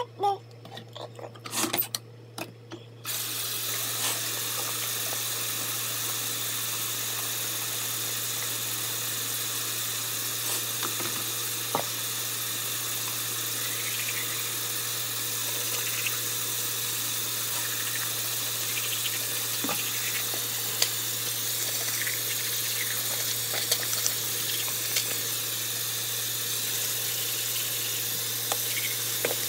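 Water running steadily from a tap into a sink, starting with a sudden hiss about three seconds in, with a few faint clicks on top.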